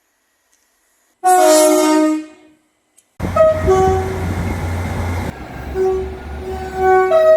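Two separate train horn soundings. First comes a single blast of about a second, several notes sounding together, about a second in. After a short silence, a second train sounds its two-tone horn in repeated alternating high and low notes over a steady low rumble.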